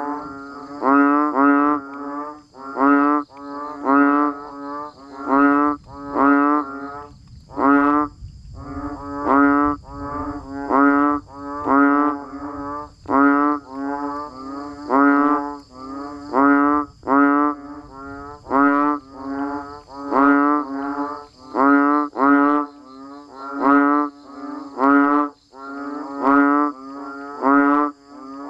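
A chorus of banded bullfrogs (Kaloula pulchra) calling: short low pulsing calls one after another, many overlapping, with a brief lull about eight seconds in. A steady high-pitched drone runs behind them.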